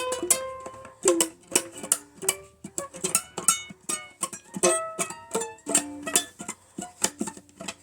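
Ukulele played unaccompanied: single notes and short chords picked one after another in an old-time blues tune, each pluck sharp and quickly fading.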